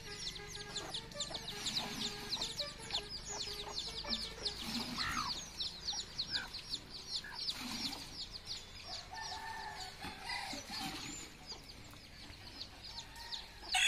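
Small birds chirping fast and high, several short falling chirps a second without a break, with a hen clucking now and then among them.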